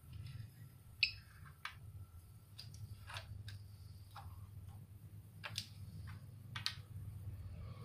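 Irregular sharp clicks and ticks, about ten of them at uneven spacing, the loudest about a second in and twice near the end, over a low steady hum.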